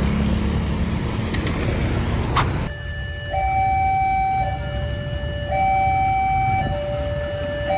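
Railway level-crossing warning siren at an Alkmaar-type crossing gate, sounding a two-tone high-low alternation with each note held about a second. It begins abruptly about a third of the way in, after a stretch of steady rumbling noise.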